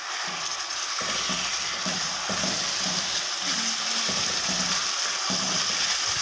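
Raw chicken pieces sizzling steadily in hot oil in a metal wok, with a silicone spatula stirring and scraping them around the pan in irregular strokes.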